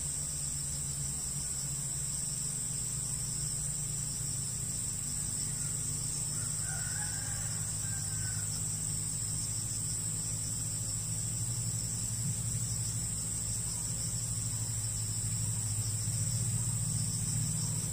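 Steady, high-pitched drone of an insect chorus, with a faint distant rooster crow about seven seconds in.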